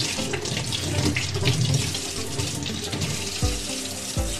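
Kitchen mixer tap running steadily into a stainless-steel sink, the stream splashing over a child's hands as she rinses off soap. A couple of dull bumps come near the end.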